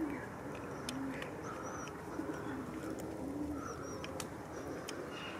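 Pigeons cooing: low hums that rise and fall, repeated about once a second, with a few faint high bird chirps and several short sharp clicks.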